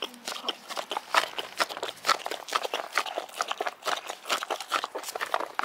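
A boxer dog licking and eating dog ice cream: a fast, irregular run of wet licking and smacking clicks.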